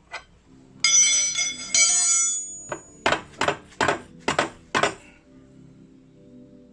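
Steel tools and parts clattering with a bright metallic ring, then about six sharp metal knocks in quick succession.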